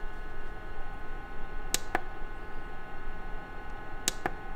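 Buttons on a Brinsea Maxi II Advance incubator's control panel pressed twice, each press a short double click, about two seconds in and again near the end, over a steady hum.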